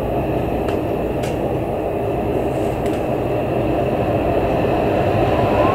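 Storm-force wind blowing steadily, a deep rushing noise that grows slightly louder near the end.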